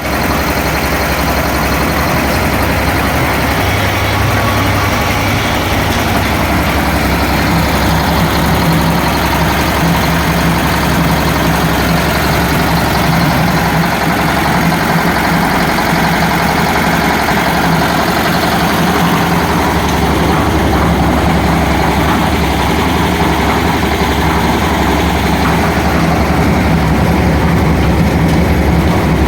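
Concrete mixer machine running steadily, a loud, constant mechanical drone with no change in speed.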